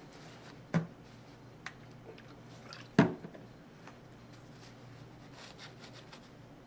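Small hard parts and tools being handled and set down on a work surface: two sharp knocks, about one second and three seconds in, the second the louder, with a lighter click between them and faint scraping near the end.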